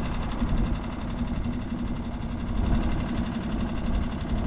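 Skiff's outboard motor running steadily at low speed, a constant hum over a low rumble.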